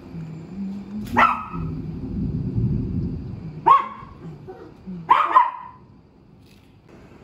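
A small dog, a toy poodle, barks sharply three times, frightened by the thunder, over the steady hiss of heavy rain. A low rumble sounds between the first and second barks.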